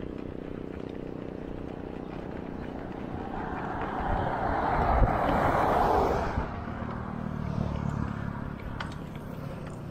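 A motor vehicle's engine running steadily, with a louder rushing noise that swells a few seconds in and fades about two-thirds of the way through.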